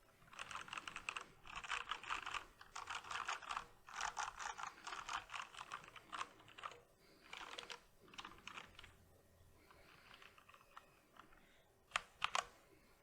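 Typing on a Corsair K65 RGB Rapidfire mechanical keyboard with Cherry MX Speed Silver linear switches and stock ABS keycaps. Fast runs of key strokes for the first several seconds, then slower and sparser, a quiet spell, and two sharper strikes near the end.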